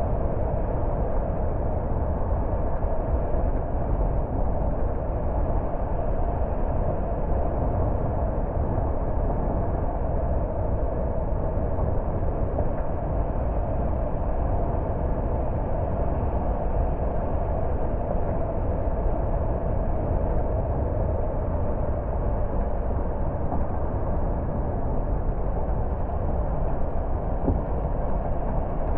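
Steady road noise of a car on the move: a constant rumble of tyres and engine, with no changes.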